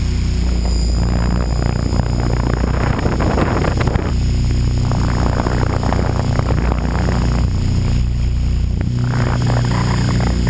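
HK600GT RC helicopter in flight, heard from its onboard GoPro: the steady drone of the rotor and drive with a high whine over it, and rushes of wind noise over the camera that come and go several times.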